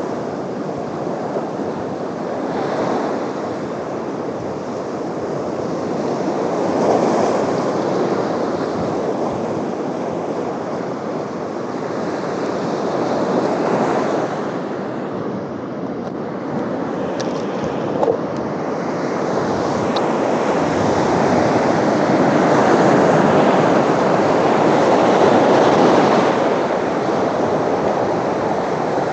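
Steady rushing noise of wind and water, swelling and easing every few seconds, with a couple of faint clicks partway through.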